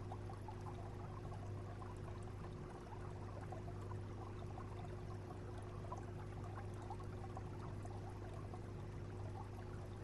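Aquarium water circulation: water steadily trickling and splashing, over a steady low hum from the tank's pump.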